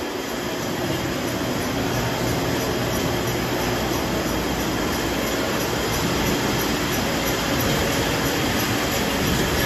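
Pineapple packing-line machinery running: conveyors and their drives make a steady, even mechanical noise with a few faint steady tones in it.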